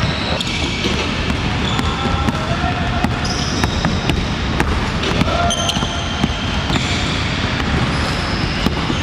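Basketball dribbled on a hardwood gym floor, with repeated sharp bounces, and brief high sneaker squeaks as the player cuts and drives. Background chatter sounds in the large gym hall.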